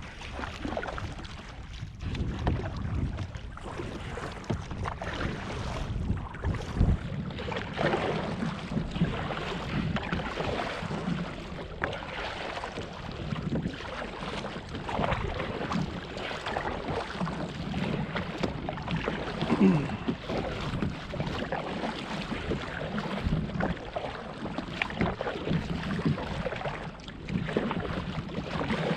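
Water lapping and splashing against a kayak, with wind buffeting the microphone.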